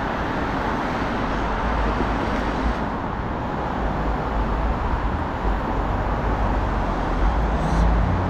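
Steady road traffic noise from cars passing on a busy street.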